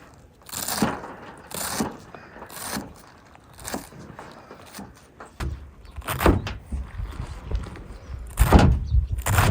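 A series of dull knocks and scraping thuds, roughly one a second, growing heavier with a low rumble in the last few seconds.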